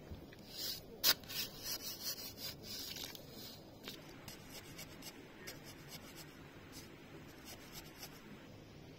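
Quick scraping strokes on wood, irregular and loudest in the first three seconds, followed by fainter scratching and light ticks.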